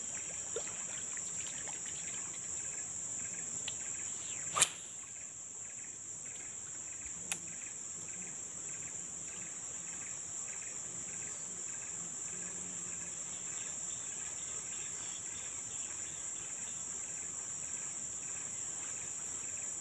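Steady, high-pitched drone of insects in tropical forest, with one sharp click about four and a half seconds in and a fainter click a few seconds later.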